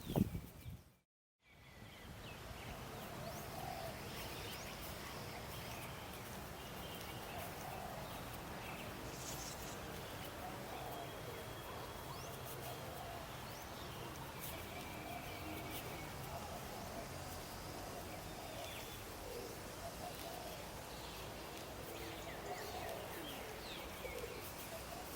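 After a moment of silence about a second in, birds chirping and calling with short, scattered chirps over a steady outdoor background.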